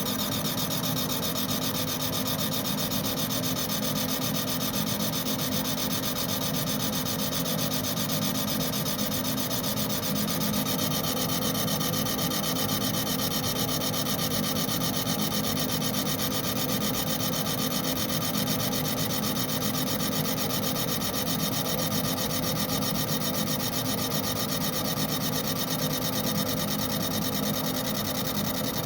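Abrasive blasting of a Glock 21 part: a steady, unbroken rasp of grit stripping the finish down to the bare gray underneath.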